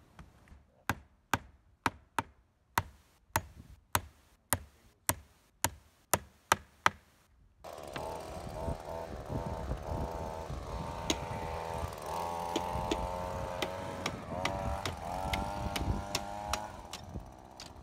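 A hammer driving nails into wooden roof framing, about a dozen sharp blows at roughly two a second. After about seven and a half seconds the blows give way to steady background noise with faint pitched sounds.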